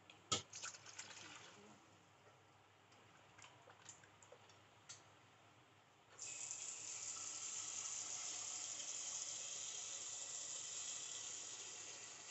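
A sharp click and a few light clicks, then from about six seconds in a steady rush of water pouring for about six seconds, as water is added to the curry gravy.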